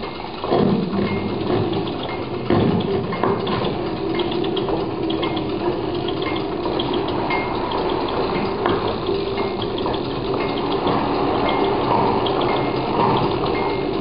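Many electric sewing machines running together as an ensemble, making a dense, steady whirring, with a few knocks in the first few seconds.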